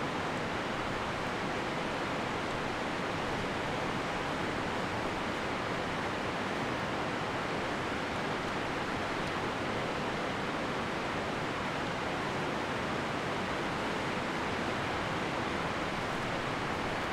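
Rapids of the Piteå river rushing steadily.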